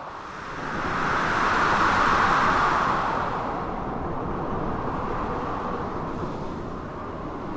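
Blizzard wind and crashing sea waves in a dense, steady roar of noise. It swells to a peak over the first three seconds, then slowly eases.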